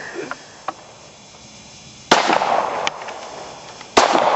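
Two Glock pistol shots about two seconds apart, each a sharp crack followed by an echo that dies away over a second or so.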